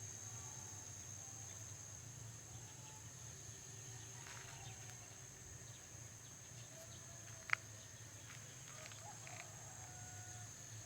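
Faint outdoor ambience: a steady high insect drone over a low hum, with a few faint bird or chicken calls. A single sharp click about seven and a half seconds in is the loudest sound.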